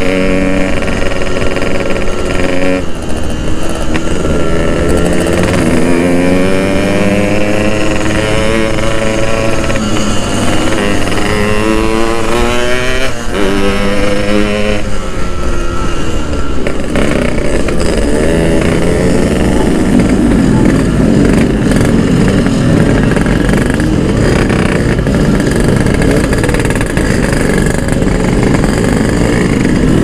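Two-stroke Yamaha motorcycle engine ridden on the road. Its pitch climbs as it revs and drops back at each gear change over the first half, then runs rougher and less even later on.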